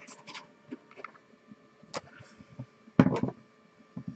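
A printed paper sheet handled close to the microphone: scattered light taps and rustles, with one louder rustle about three seconds in.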